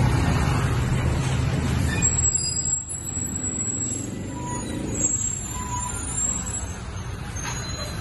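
Large sheet-metal gate being swung open, with a low rumbling that is loudest for the first three seconds and then eases off.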